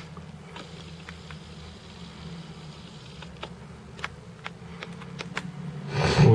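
Scattered faint clicks of an SJ7000 action camera's buttons being pressed, over a steady low buzzing hum. A man's voice comes in near the end.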